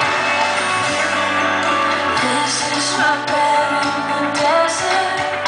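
A song playing: a singing voice that slides and wavers over held instrumental chords, steady and loud throughout.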